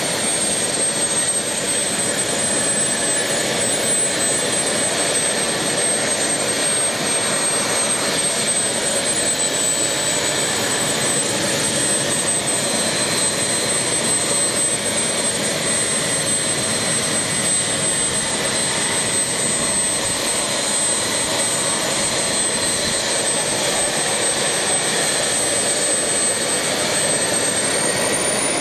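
Small RC model jet turbine running on a test stand: a loud, steady rushing roar with a high, level whine. Near the end the whine starts to climb as the turbine speeds up.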